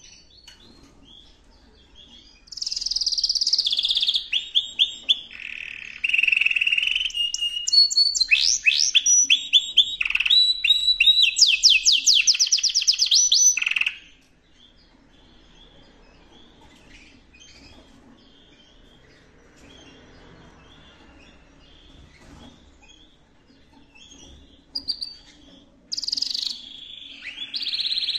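Yorkshire canary singing, early in its conditioning for the breeding season: a long song of rapid trills and repeated rolling notes for about eleven seconds. It then falls quiet and starts another phrase near the end.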